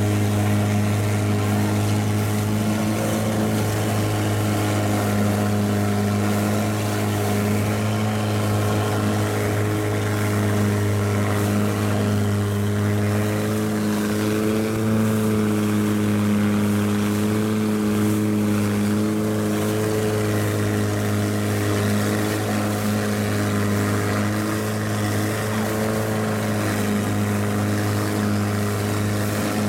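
Longtail boat's engine running steadily at cruising speed, heard from aboard the boat, its pitch holding nearly constant with slight wavers.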